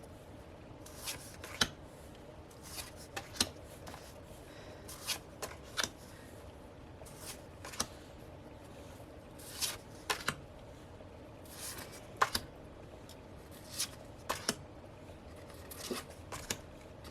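A stack of small calendar cards being handled and flipped through by hand, one card after another, giving soft, irregular flicks and taps.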